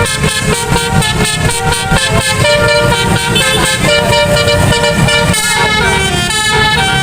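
Bus 'telolet' musical horn playing a quick tune, several horn notes sounding together and switching pitch every fraction of a second, with a low rumble underneath.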